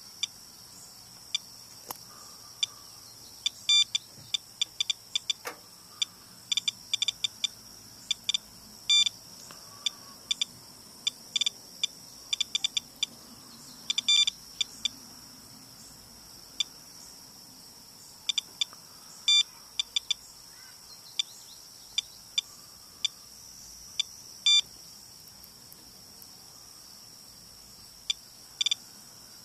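Geiger counter chirping at irregular intervals, some counts coming in quick pairs or clusters, over a faint steady high whine. It is registering rainwater from a downspout at what the owner puts at six to eight times his normal background.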